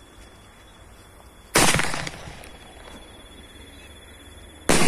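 Coronet Cock Brand sky-shot firework going off: two loud bangs about three seconds apart, each dying away over a moment.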